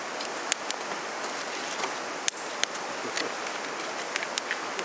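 Campfire burning with a steady hiss and irregular sharp crackles and pops.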